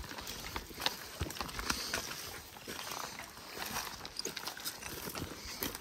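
Footsteps of a hiker walking in flip-flops along a dirt trail: irregular crunches and clicks.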